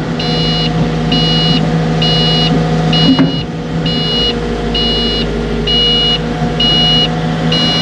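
Cat 307.5 mini excavator running, with a high-pitched warning beep in the cab repeating about once a second: the alarm that sounds while the quick coupler is unlocked. A single knock about three seconds in.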